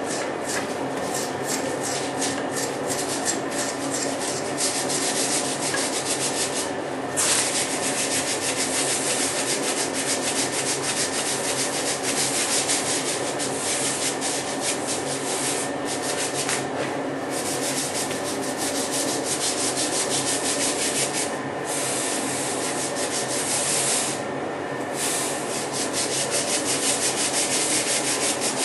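Continuous abrasive rubbing, like sanding, in fast repeated strokes, with a few brief pauses.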